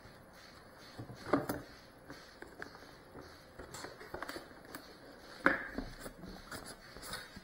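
Cardboard box being handled on a table: scattered clicks and rustling, with two louder knocks, about a second in and again a little past the middle.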